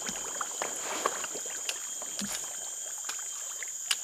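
Steady high-pitched drone of forest insects, over scattered clicks and light knocks from a baitcasting rod and reel being handled, cast and cranked. A single sharp click near the end is the loudest sound.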